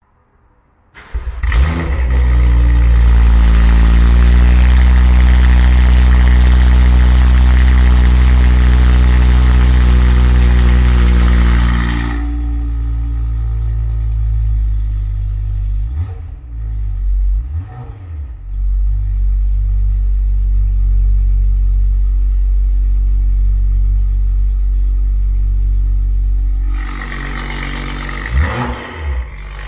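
BMW M2's turbocharged straight-six through an Armytrix valved sport exhaust, started about a second in and holding a loud high idle. It settles to a lower idle about twelve seconds in, is blipped twice, and runs on at idle. Near the end, with the exhaust valves open, it is revved up and down.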